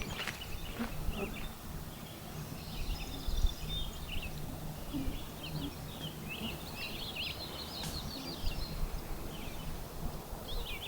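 Songbirds chirping and trilling in quick runs of short high notes, with a few footstep scuffs on the trail just at the start.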